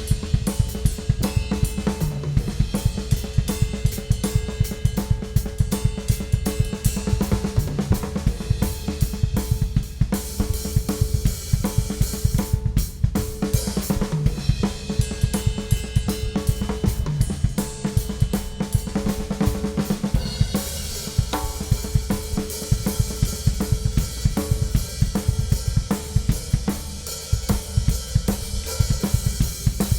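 Ludwig Classic Maple drum kit played continuously: bass drum, snare, toms and hi-hat in a steady groove. Cymbals wash over it, growing brighter about two-thirds of the way through.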